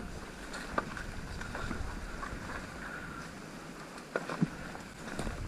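Low wind rumble buffeting the microphone, with a few sharp clicks, one near the start and two close together late on.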